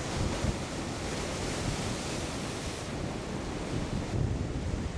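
Rough, storm-driven surf breaking on a shore, with wind buffeting the microphone.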